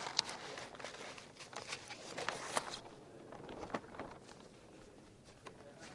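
Papers rustling and being handled at a desk microphone, with scattered clicks and taps. It is busiest in the first three seconds and fainter after.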